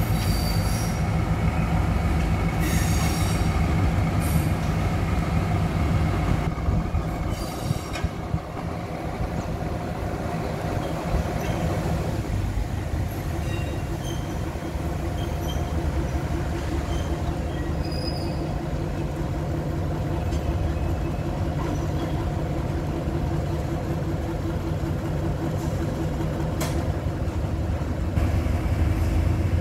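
Diesel locomotive engines running with a steady low drone as a passenger train moves slowly along the tracks. There are a few sharp clicks about seven to eight seconds in, and a faint regular pulsing in the engine sound from about halfway through.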